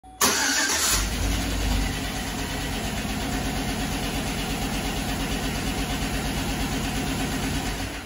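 A 2007 Chevrolet Avalanche's 5.3-litre V8 starts with a sudden burst, flares briefly, then settles to a steady idle with an even, repeating tick. The tick is the sign of a collapsed hydraulic lifter, which the owner suspects is the one on cylinder number four.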